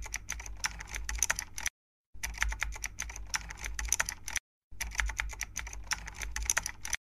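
Computer keyboard typing sound effect: three runs of quick keystrokes, each about two seconds long, broken by two brief pauses.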